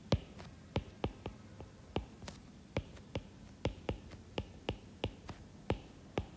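Stylus pen tapping and clicking on a drawing tablet while writing, as short sharp taps at an irregular pace of about three a second.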